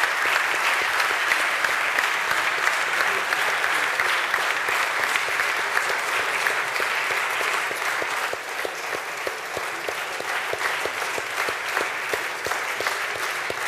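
Audience applauding steadily, the clapping thinning slightly about eight seconds in.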